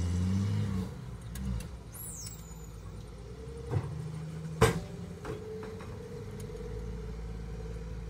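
Diesel dump truck engines running at a soil dump site. The engine note is strong at first and drops away about a second in, then carries on as a steadier running sound. Three sharp knocks fall around the middle, the second one the loudest.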